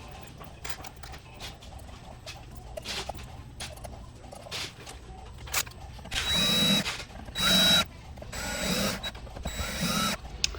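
Light clicks of the metal bridge and screws being handled, then an electric drill driving the four bridge mounting screws into the guitar body in four short bursts, starting about six seconds in.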